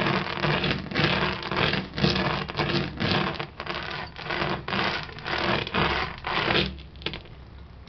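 Cylindrical stone roller pushed back and forth over dried green gram on a cloth, the grains crunching and rattling as their shells crack off. The strokes come about two a second and stop shortly before the end.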